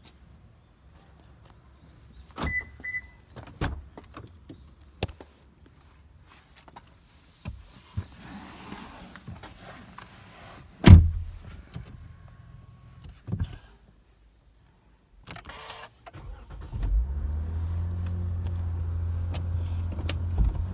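Toyota Mark X 2.5G's 2.5-litre V6 being started: after two short high beeps, a few clicks and one heavy door thud, the starter cranks briefly and the engine catches about three-quarters of the way in, then settles into a steady fast idle just under 2,000 rpm.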